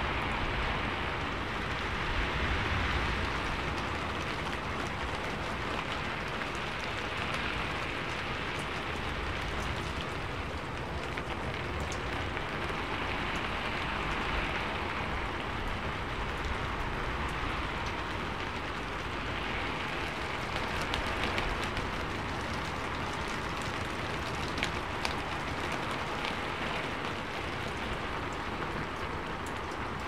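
Steady rain falling on a rooftop: an even hiss that swells and eases every few seconds, with scattered sharp ticks of single drops.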